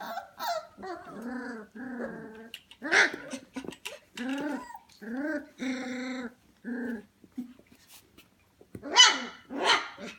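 Young Goldendoodle puppies whining and yelping in a string of short calls, the loudest two near the end.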